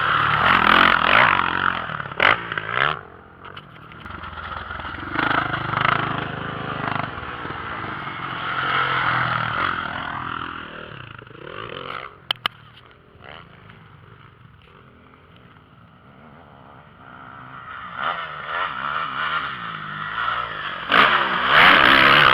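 Motocross dirt-bike engines revving on the track, swelling as bikes pass near the start and again near the end and fading away in between. A couple of sharp clicks about twelve seconds in.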